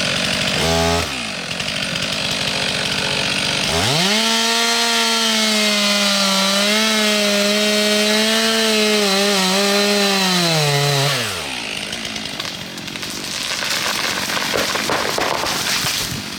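Two-stroke chainsaw revved up to full throttle for about seven seconds, its pitch wavering and dipping under load as it cuts into a tree for a hinge cut, then dropping back to idle. A short rev falls away about a second in.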